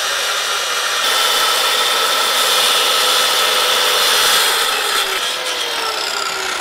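Handheld circular saw cutting through a wooden board, its motor whining steadily as the blade rips the wood, with the pitch sagging a little near the end.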